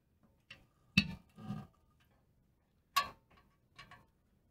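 Clicks and taps of a small powder-coated steel plate being set and pressed onto a pressed-steel toy truck body: a loud click about a second in with a short scrape after it, another loud click about three seconds in, and a few fainter ticks between.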